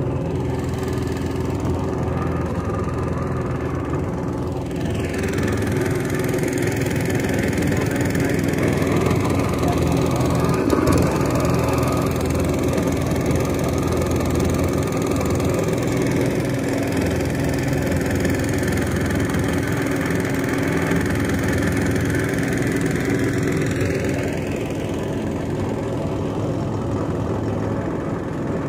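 A boat's engine running steadily, with an even, unchanging hum.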